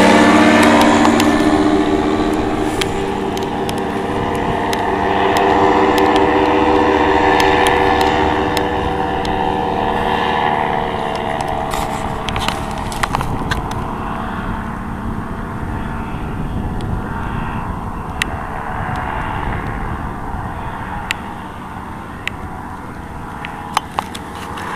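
Paramotor engine and propeller running as the paramotor flies away from the microphone, its drone slowly fading. Wind rumbles on the microphone underneath, with a few sharp clicks in the second half.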